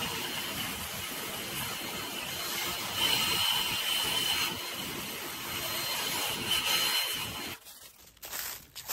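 Handheld leaf blower running with a steady rush of air and a high whine, blowing dry leaves off rocky ground. It gets louder about three seconds in and again a little later, then shuts off shortly before the end.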